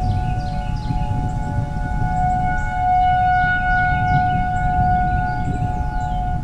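Outdoor tornado warning sirens sounding the alert, a steady held wail made of several tones that swells louder about halfway through and then eases off.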